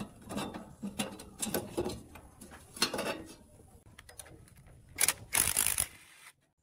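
Metal clanking and rattling from the old woodworking machine's sheet-metal panel and parts being handled, then a power driver running in two short, loud bursts near the end to undo the handwheel's centre bolt.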